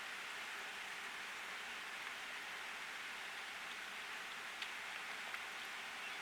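Steady pouring rain, an even hiss, with a couple of single drops ticking about two thirds of the way in.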